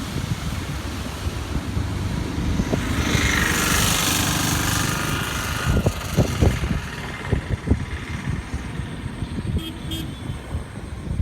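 Wind buffeting the microphone with a low rumble, and a motor vehicle passing about three to five seconds in, its pitch falling as it goes by.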